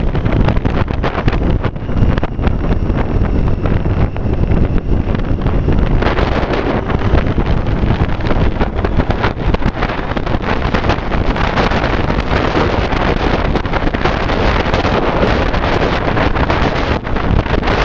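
Wind rushing over the microphone of a Triumph Street Triple motorcycle at road speed, with the bike's three-cylinder engine running underneath. The rush grows louder and brighter about six seconds in.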